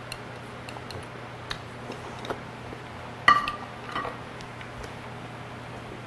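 Small ceramic bowl set down onto a large ceramic plate: a sharp ringing clink a little past three seconds in, then a softer ringing clink just before four seconds. A few light clicks of chopsticks and bowl come before it.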